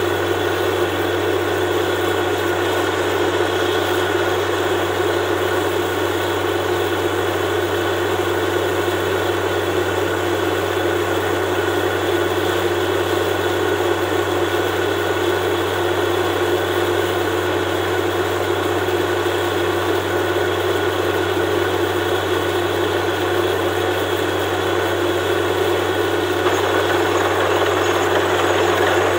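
Borewell drilling rig's engine running steadily at working speed, a loud continuous drone that gets slightly louder near the end.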